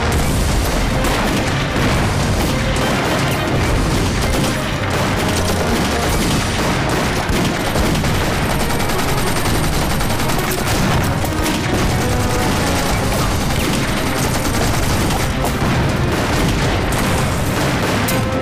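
Battle sound effects: dense, continuous gunfire mixed with booming explosions, over a music score.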